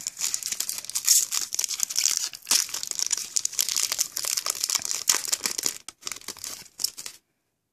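Foil trading-card pack wrapper being torn open and crinkled by hand as the cards are pulled out, a dense run of crackles that cuts off suddenly near the end.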